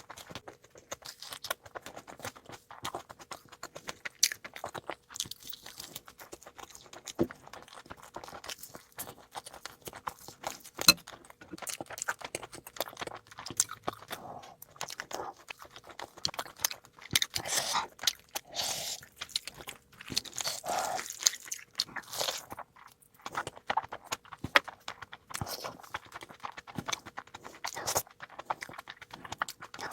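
A person eating close to the microphone: wet chewing, lip smacks and crunchy bites of a meat curry and rice meal, in a dense, irregular run of short clicks with a few louder bites.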